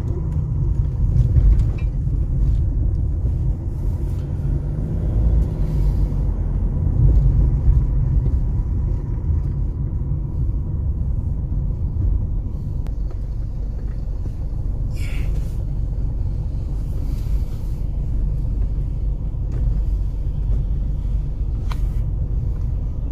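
Steady low rumble of a Mercedes-Benz car's engine and tyres while driving, heard from inside the cabin.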